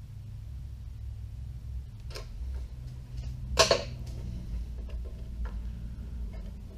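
Light clicks of a screwdriver shaft working through the eye of a sling stud as the stud is threaded by hand into a hollow synthetic rifle stock. About three and a half seconds in there is a single sharp metal clack as the screwdriver is set down on the workbench, over a steady low hum.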